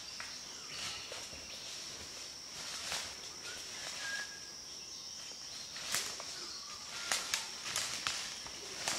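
Footsteps crunching through dry leaf litter and twigs on a forest path, with scattered sharp crackles that cluster in the second half. A steady high-pitched insect drone runs underneath.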